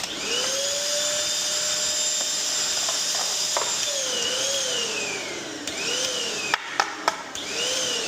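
Bissell 3-in-1 stick vacuum switched on, its motor whine rising quickly to a steady pitch. From about four seconds in, the motor repeatedly winds down and picks back up, with several sharp clicks. The owner suspects the motor is stalling because it is getting too hot.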